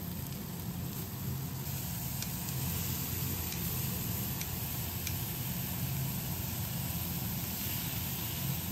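Beef steak and sliced onions sizzling on a hot flat-top griddle: a steady hiss over a low hum, with a few faint clicks.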